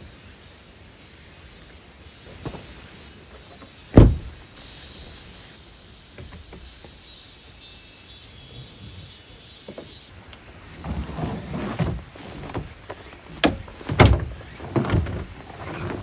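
A vehicle door shutting with one hard thump about four seconds in, over a faint steady insect hiss. From about eleven seconds on comes a run of knocks and clatters as gear is handled around the truck.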